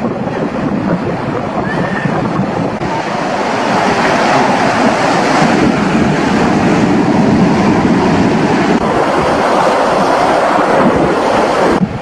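Sea surf breaking and washing over shore rocks: a steady rush of water that grows louder about four seconds in.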